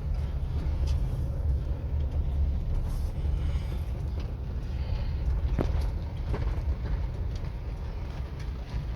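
Chevrolet S10 pickup's diesel engine and drivetrain running while the truck is driven slowly, a steady low rumble. About halfway through there is one short falling squeak.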